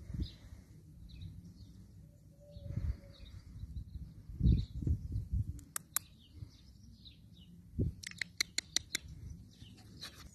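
Birds chirping in the background, with a quick run of sharp chirps about eight seconds in. Loud low thumps on the microphone come and go, the strongest a little after four seconds.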